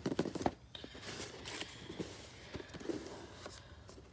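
Cardboard box being worked at by hand as someone tries to pry it open: scattered scrapes, taps and clicks of cardboard, with a longer hissing rub about a second in.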